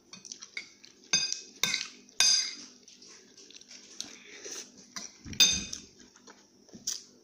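A metal spoon clinking and scraping against a ceramic bowl while scooping rice. There are three sharp, ringing clinks a little after a second in and another one past the middle.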